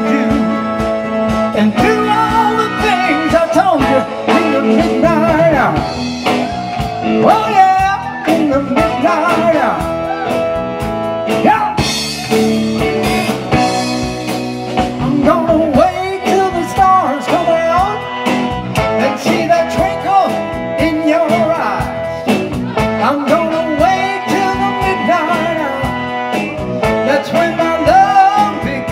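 A live band playing a song, with lead lines bending in pitch over a steady beat.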